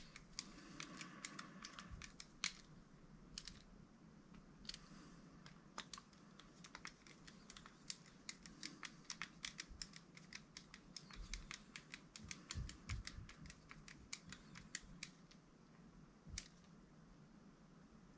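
Faint, irregular light clicks and taps of small plastic and metal RC car parts and tools being handled, as the serviced central differential is worked on by hand.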